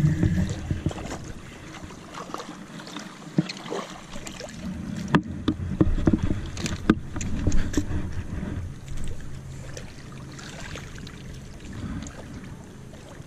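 Handling sounds of landing a bass on a spinning rod: irregular clicks and knocks from the reel and from the fish and rod against the shoreline rocks, loudest around the middle, over a steady low rumble of wind on the microphone.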